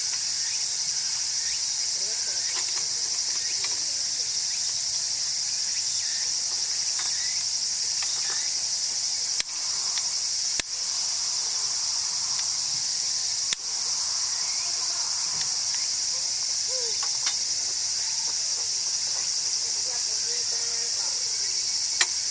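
Chorus of crickets and other insects, a steady high-pitched trilling without a break, with a few faint clicks around the middle.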